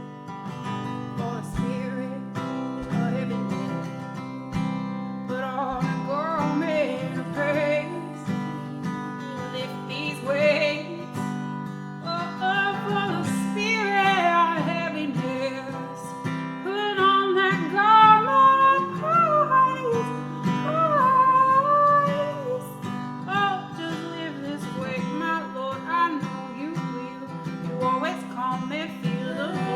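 Acoustic guitar strummed steadily, with a voice singing a melody over it from about six seconds in without clear words, swelling loudest in the middle.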